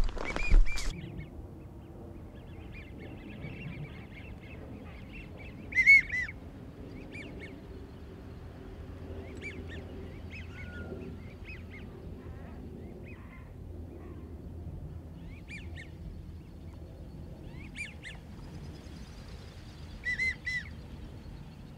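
Short whistled wigeon calls, the drake's rising-and-falling whistle, coming singly or in quick pairs every few seconds; the loudest is about six seconds in, with another pair near the end.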